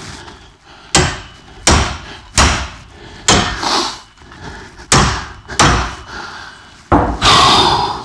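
Sledgehammer blows on the striking handle of an OTC hub puller, about seven sharp metallic impacts roughly a second apart, hammering a seized CV axle out of a rear wheel hub. A longer, noisier sound comes just before the end.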